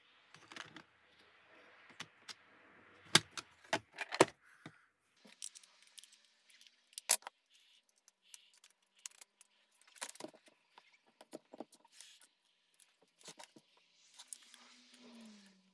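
Small steel router bits clinking and clicking in their plastic storage case as they are picked through, then sharp clicks and knocks of a handheld trim router being handled and set up.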